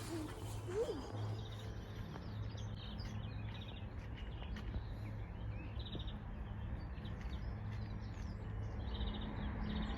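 Small birds chirping and trilling on and off, over a steady low hum.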